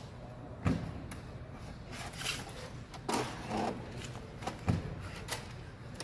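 Baling wire being handled and bent around a bale in a baler: scattered scrapes and light metal clicks, with a dull knock under a second in and another near five seconds in.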